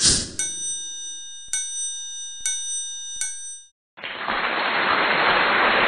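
Intro sound effect: a quick whoosh, then shimmering bell-like chimes struck four times and left ringing, cutting off just before the four-second mark. After a brief gap a loud, steady hiss starts.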